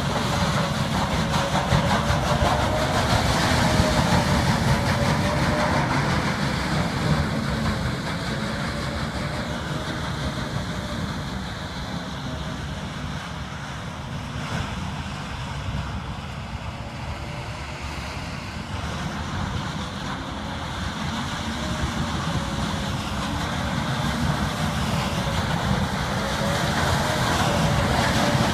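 Heavy off-road vehicle driving: its engine and running gear run continuously with a wavering whine, louder a few seconds in and again near the end.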